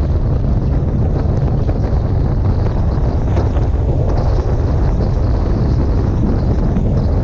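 Heavy wind buffeting on the microphone of a camera on a motorcycle riding at speed, a loud steady low rumble with no distinct engine note showing through.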